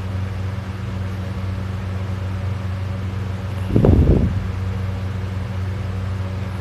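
A sleeping person snoring once, a short snore about four seconds in, over a steady low hum.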